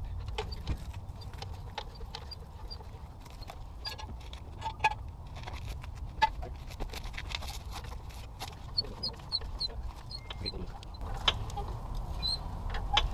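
Hydraulic floor jack being pumped to lift a car, giving a scattering of light, irregular clicks.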